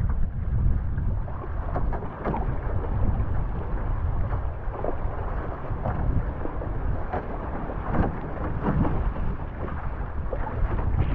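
Wind buffeting the microphone with a steady low rumble, over water rushing and splashing along a one-person outrigger canoe as it is paddled fast downwind through chop, with irregular splashes from the paddle and waves.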